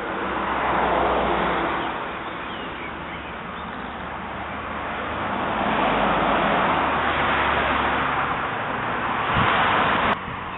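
Outdoor rushing noise that swells twice, with a low steady hum underneath, dropping off abruptly near the end.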